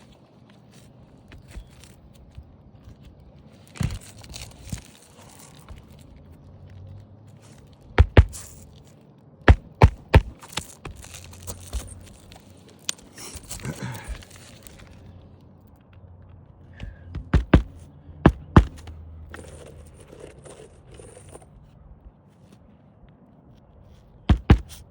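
Roofing nails being driven into asphalt shingles by hand hammer: sharp strikes in quick groups of two or three, with scraping and rustling as the shingles are lifted and handled between them. The aged, brittle shingles shed granules as the nails go in.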